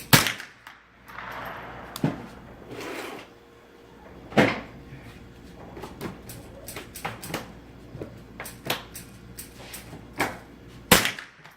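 Rifle gunfire at a shooting range: loud single shots at the start, about 2 seconds in, about 4 seconds in and near the end. Many fainter shots from other firing points fall in between, and a short echo follows the louder ones.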